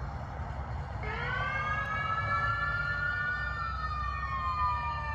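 Emergency vehicle siren wailing: it winds up in pitch about a second in, holds, then slowly drops away toward the end. A steady low rumble runs underneath.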